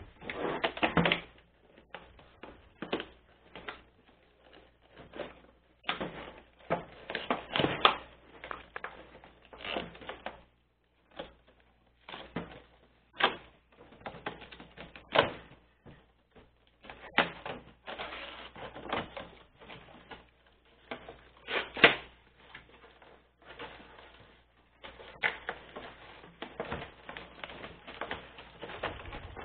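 Toy packaging being opened by hand: clear plastic and a cardboard window box crinkling and crackling in irregular bursts of clicks and rustles, with short pauses between, the sharpest crack about three-quarters of the way through.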